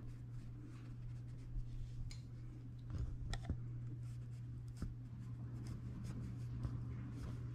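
Flat paintbrush stroking acrylic paint onto canvas in short fur strokes: faint scratchy brushing with a few light ticks, over a low steady hum.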